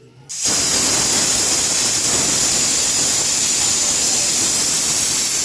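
Pressure cooker whistle: a loud, steady jet of steam hissing out from under the weighted vent on the lid, starting about half a second in. It is the sign that the cooker has come up to pressure.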